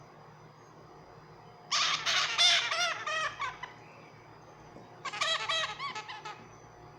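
Pet parrot calling in two bouts of quick repeated notes, each lasting a second or two, the first about two seconds in and the second about five seconds in.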